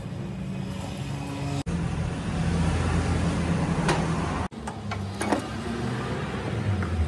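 A motor running steadily with a low hum, with a few short sharp clicks over it. The sound breaks off and changes abruptly twice, about one and a half seconds in and again past the middle.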